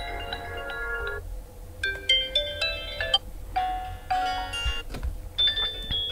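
OPPO A18 smartphone speaker playing short ringtone previews one after another. About four different bright, plinking melodies each last a second or so, are cut off, and are followed by the next.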